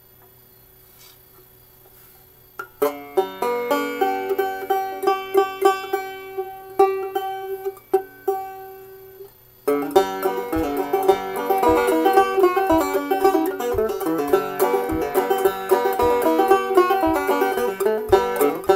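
Homemade frying-pan banjo with a goatskin head being played. A low hum fills the first few seconds, then picked notes begin. The playing stops briefly about halfway and resumes as a fuller, faster tune.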